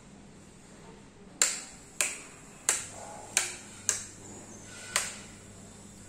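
Six sharp clicks, each with a brief ringing tail, spaced irregularly about half a second to a second apart, over a faint steady hum.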